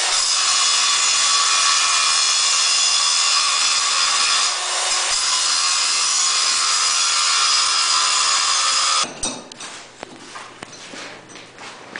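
Angle grinder grinding a steel bar down to width, a loud steady grinding hiss with a brief dip about halfway through. It stops abruptly about nine seconds in, leaving light knocks and handling noise.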